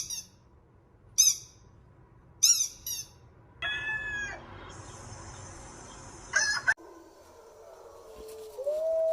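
A run of short, high bird-like chirps and other brief sound effects played back to a dog. Near the end a dog starts howling, one long steady note.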